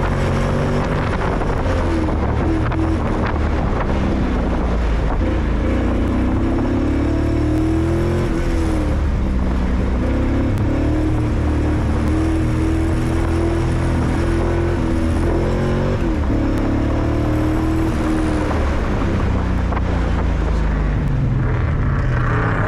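A Corvette's LT4 V8 engine under hard driving, its pitch rising and falling over and over as it revs and comes off the throttle. The engine is misfiring, which the driver thinks leaves it running on five or six cylinders much of the time; he suspects the spark plug wires or the OptiSpark.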